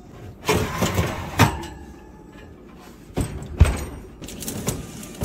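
Oven shelf and stainless roasting pan clattering as they go into the oven, then the oven door closing with a thump about three and a half seconds in.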